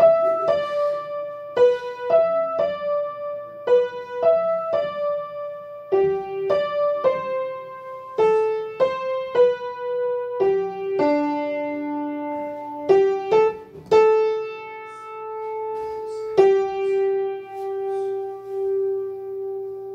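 A keyboard playing a simple single-note melody, one note at a time, ending on a long held note over the last few seconds.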